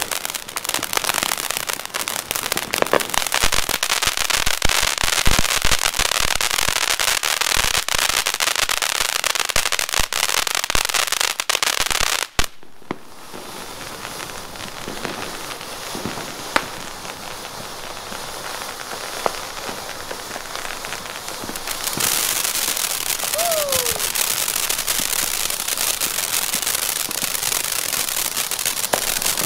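Ground-fountain fireworks spraying sparks with a dense, crackling hiss. The sound drops suddenly to a quieter hiss about twelve seconds in, then grows louder again about ten seconds later.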